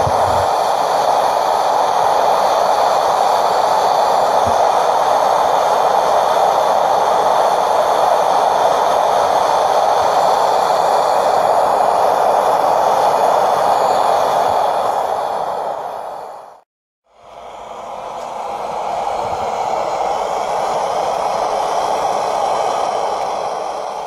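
A small home-made furnace running at full heat, with a steady rushing noise from its firing. The noise stops abruptly about two-thirds of the way through and starts again a moment later.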